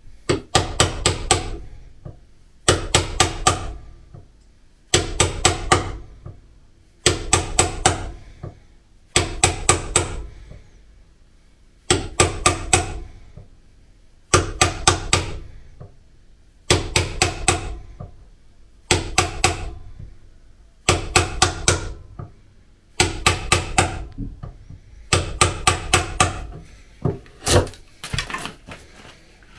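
Claw hammer striking a chisel to chop a hinge recess into a hard oak door frame. The blows come in quick runs of four or five, a run about every two seconds, and grow more irregular near the end.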